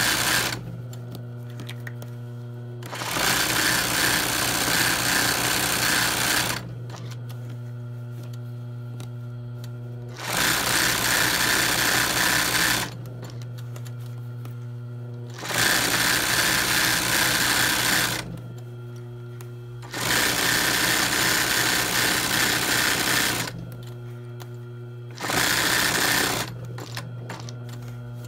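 ROYAL sewing machine stitching freehand embroidery in a hoop, in short runs of two to four seconds that stop and start again about five times. A steady motor hum carries on between the runs.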